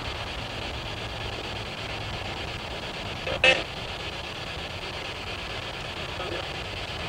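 SB7 spirit box running: a steady hiss of radio static, with one brief, loud snatch of sound about halfway through.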